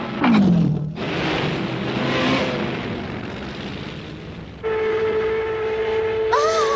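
Cartoon sound effects: a falling tone as a lever is pulled, then a rushing noise, then from about four and a half seconds in a steady horn-like drone.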